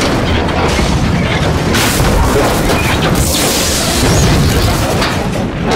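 Film sound effects of an aircraft crash fireball: a continuous low rumble of explosion and burning. Sharper crashing surges come about two seconds in and again around three to four seconds in.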